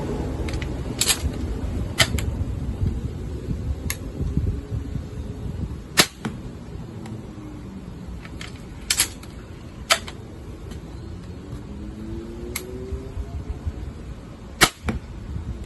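Adder crossbow being shot at a target with its original bolts: a series of sharp snaps and clicks spaced a second or more apart, the loudest about 6 s in and near the end.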